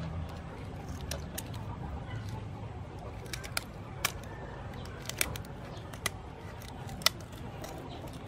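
Kitchen scissors snipping through raw mantis shrimp shell: a dozen or so sharp, irregular snips, the loudest about seven seconds in.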